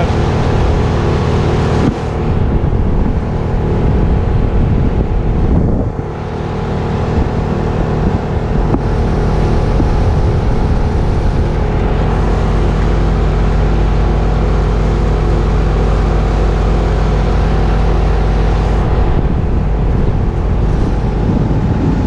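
Crane engine running steadily with a constant droning hum, while wind buffets the microphone. There is a brief dip about six seconds in.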